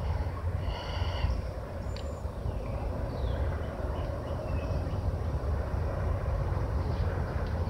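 Outdoor background: a steady low rumble, with a few faint bird chirps now and then.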